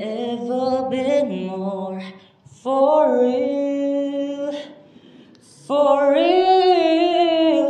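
A solo voice singing unaccompanied, as a short cover. There are three phrases of long held, wavering notes with brief pauses between them.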